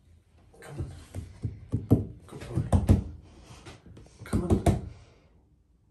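Rapid knocks and taps against the side of a bathtub, in a burst of about two seconds and then a shorter one near the end.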